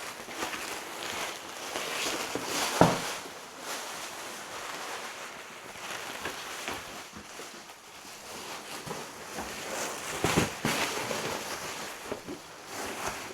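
Foam-backed foil underlay rustling and crinkling as it is handled and laid on the floor, with a knock about three seconds in and another about ten seconds in.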